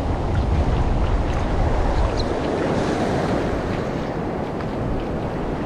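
Wind buffeting the microphone over a steady wash of waves, heavy in low rumble.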